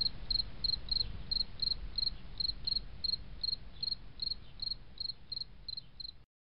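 A cricket chirping steadily, about three short high chirps a second, over a low rumble. It cuts off suddenly near the end.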